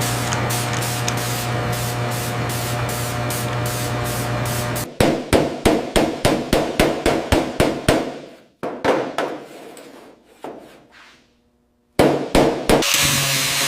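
Hammer blows on metal in quick succession, about three a second, following a steady machine hum. The blows stop, there is a brief silence, and then a few more strikes come before a steady mechanical noise resumes.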